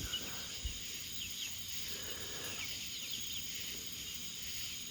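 Night chorus of crickets and other insects: a steady, high-pitched trilling, with many short, quick chirps below it.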